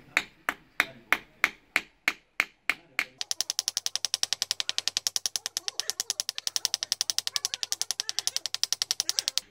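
Hammer tapping in a steady rhythm, about three sharp blows a second. About three seconds in it changes to a fast run of lighter, higher taps, about nine a second.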